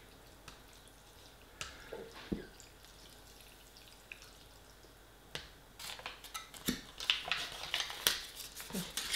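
Metal spoon stirring rice noodles in a paper noodle pot of hot water: scattered light clicks and scrapes at first, growing busier from about halfway.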